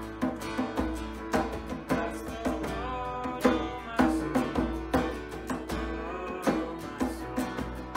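Church worship band playing a song with a steady beat, guitar and drums.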